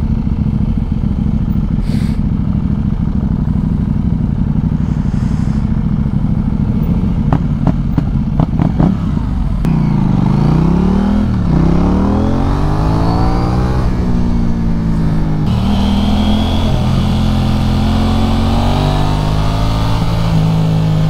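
KTM 790 Duke's parallel-twin engine with an aftermarket Arrow exhaust, running at low revs, with a few sharp pops about eight seconds in. It then accelerates, its pitch rising and dropping back at two upshifts about three seconds apart, before settling into a steady cruise.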